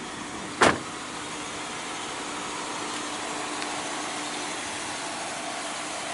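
The driver's door of a 2018 Buick Regal TourX swung shut, giving one solid slam about half a second in. Steady outdoor background noise follows.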